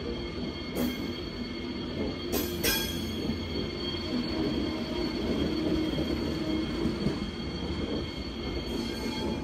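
Passenger coaches of a departing ÖBB Nightjet night train rolling slowly past, the wheels running on the rails with a steady high squeal. A few sharp metallic clanks come about one second and two and a half seconds in.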